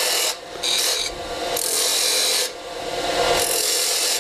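Turning tool cutting into a spinning wooden spindle on a lathe, a hissing shaving sound that comes in several passes with brief breaks between them, as waste wood is taken away ahead of cutting a cove.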